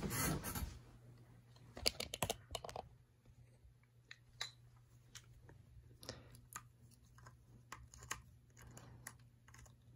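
Faint plastic clicks and taps from hands handling and posing a plastic Mosa Racer Zord toy figure, with a cluster of clicks about two seconds in.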